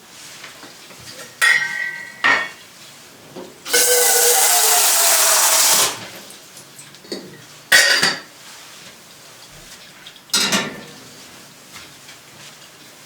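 Dishes and cutlery clinking and knocking, four sharp sounds, two of them ringing briefly. A loud steady hiss lasts about two seconds in the middle.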